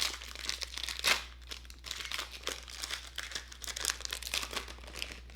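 Plastic trading-card pack wrapper crinkling as it is torn open and handled, a run of quick crackles with a louder rip about a second in.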